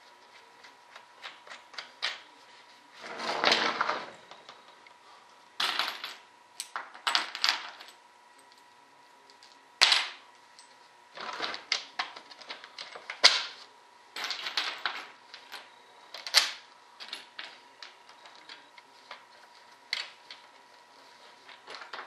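Small metal washers and bolts clinking and rattling as they are handled and set onto bolts, in irregular bursts of sharp clinks, with a longer rattle about three seconds in.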